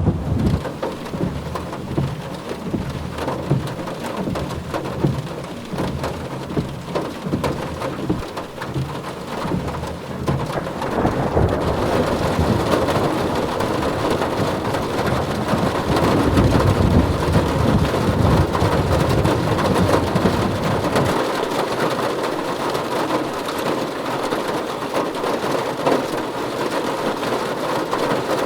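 Heavy rain pelting a car's roof and windows, heard from inside the car, with rolls of thunder. The rain grows heavier partway through, and a long deep rumble of thunder follows before it cuts away to steady rain.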